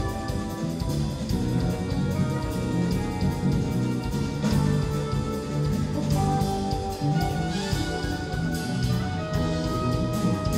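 Live jazz-fusion band playing: soprano saxophone holding long melody notes over electric bass, electric guitar, keyboards and a drum kit.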